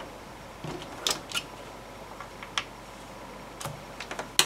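Light clicks and knocks of screwdrivers being picked up from and put down on a desk, about half a dozen scattered taps with the loudest near the end.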